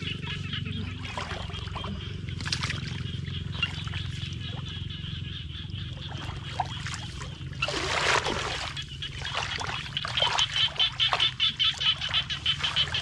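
Shallow muddy water sloshing and splashing as a bamboo plunge-basket fish trap is pressed and shifted into it, with one louder splash about eight seconds in. Behind it runs a steady chorus of calling animals, turning into fast, loud pulsing calls near the end.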